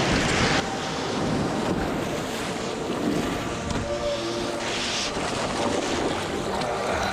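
Whitewater surf washing and splashing around a surfboard as it is waded and paddled out through the shore break. The splashing is loudest in the first half-second, and wind buffets the microphone.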